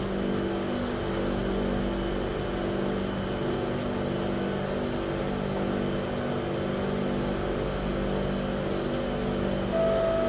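Steady hum inside an MRT train car, from its air conditioning and running equipment, with several held low tones. Near the end a clear tone sounds as the door-closing chime begins.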